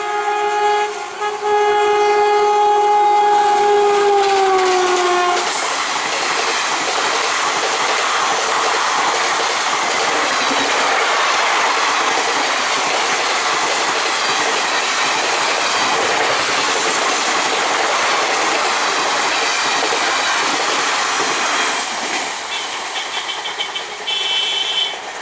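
WAP-4 electric locomotive's horn sounding one long blast as it approaches. The horn's pitch drops as the engine passes, about five seconds in, and the horn stops. After that, the express's coaches roll past with a steady rush of wheels on rail and clickety-clack over the rail joints.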